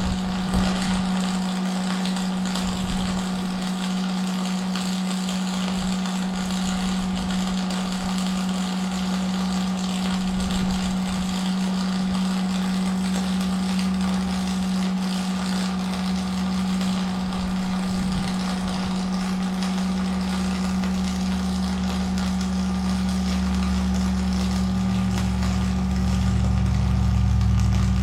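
An engine running steadily at idle: a constant hum with a hiss over it, and a deeper rumble that swells over the last several seconds.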